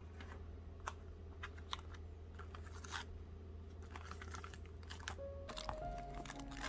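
Plastic natto containers and their cellophane wrap being handled: irregular light clicks and crinkles as the packs are lifted and a sauce sachet is picked out, with a louder burst of crinkling right at the end. Soft background music plays under it.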